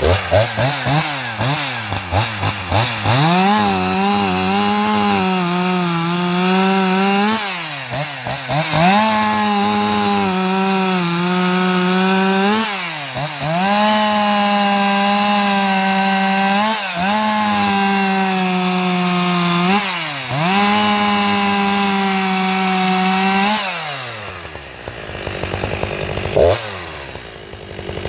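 Husqvarna 254XP two-stroke chainsaw fitted with a 3/8-inch-pitch bar and chain, blipped a few times, then held at full throttle cutting through a log, the revs dipping and recovering several times. Near the end it drops to idle, with one quick blip.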